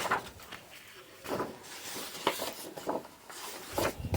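Pages of a picture book being turned and handled: a few soft paper rustles and light taps.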